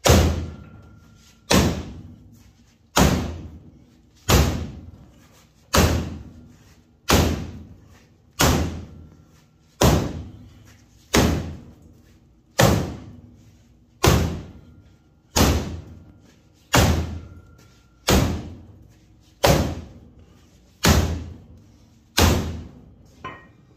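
Sledgehammer blows on the crumpled rear body of a demolition derby car: about seventeen heavy strikes, one every second and a half, each ringing out briefly. The twisted back end is being beaten straight.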